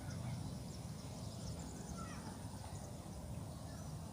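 Outdoor ambience: faint, scattered bird chirps over a steady low rumble, with a thin steady high-pitched tone.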